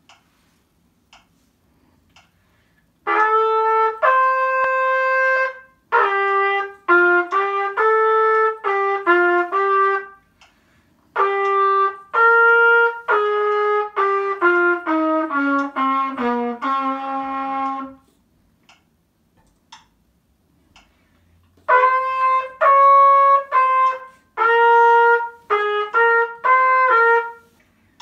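Solo trumpet playing a melody in four phrases separated by short silences, the third phrase ending in a run of falling notes.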